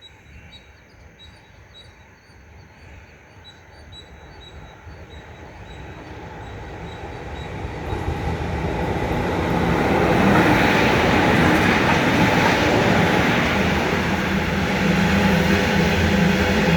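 A pair of diesel-electric locomotives approaching and passing at close range: faint at first, growing steadily louder for about ten seconds, then a loud, sustained engine rumble with wheel and rail noise as they go by.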